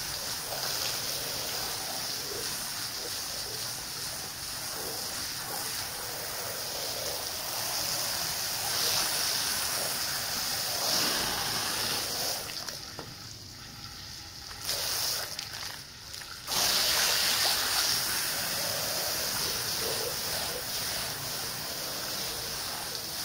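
Water from a garden hose spraying onto a soaked carpet, rinsing out the suds: a steady hiss and splatter of spray on the wet pile. About halfway through it drops away for a few seconds, then comes back a little louder.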